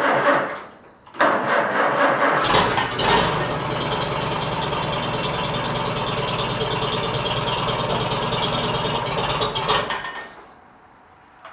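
Cold start of a 1953 Farmall Super A's four-cylinder gasoline engine: the starter cranks, stops briefly, cranks again, and the engine catches about two and a half seconds in. It then runs steadily for several seconds and stops suddenly near the end when the ignition is switched off.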